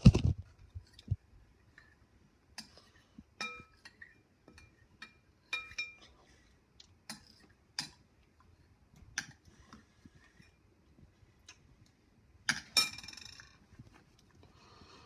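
A loud knock at the start, then scattered light clicks and clinks, a few with a brief ring, and a short louder clatter near the end.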